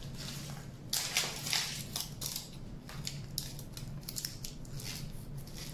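Aluminium foil crinkling and crackling under the fingers as the foil armature of a small dog sculpture's head and neck is squeezed and taped, in quick irregular crackles that are loudest about a second in.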